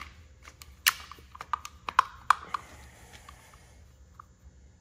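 Sharp metal clicks and knocks, bunched between about one and two and a half seconds in, as a distributor is worked down into a small-block Chevy 350 and seated.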